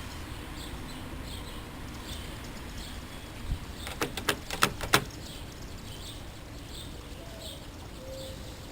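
A car door lock being worked with picking tools: a quick run of about five sharp clicks a little under halfway through, over steady background noise.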